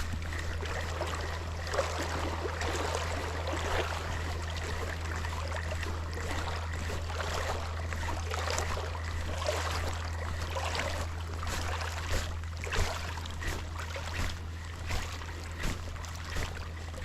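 Water washing and sloshing along the shore, a steady rushing wash with a steady low hum underneath; in the last few seconds a run of regular, evenly spaced pulses, a little over one a second, stands out.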